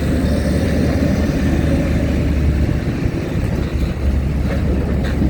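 Steady low rumble of heavy vehicle engines running, with the rumble easing off about three seconds in and coming back.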